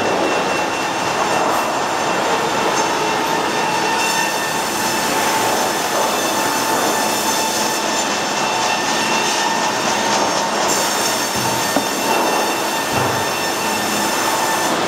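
Sawmill headrig machinery running at a 6-foot double-cut band headrig: a steady loud metallic rumble and clatter with a high whine, and a short knock near the end.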